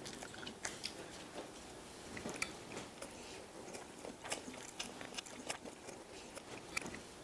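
Two people chewing dumplings with their mouths full: quiet, irregular chewing with many small wet clicks and smacks.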